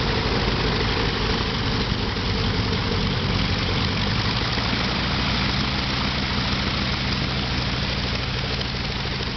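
Radial engine of a biplane running at low power as the plane taxis, propeller turning: a steady, even drone.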